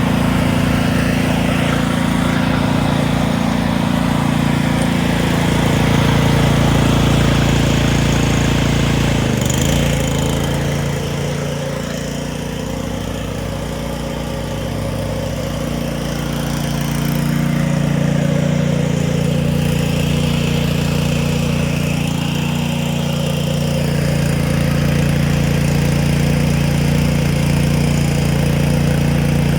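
Small gasoline inverter generator running steadily. Its engine speed shifts about ten seconds in, and it runs a little quieter for several seconds before picking back up.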